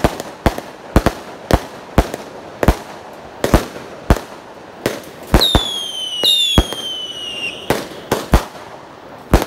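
Aerial fireworks bursting in a run of sharp bangs, about one or two a second, with two falling whistles from whistling fireworks about five and six seconds in.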